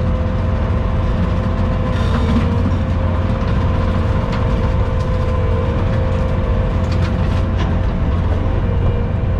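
Skid steer engine running steadily under load, with a constant whine over its rumble. A few short sharp cracks come through the middle, as the machine trims a tree with its bush hog blade shut off.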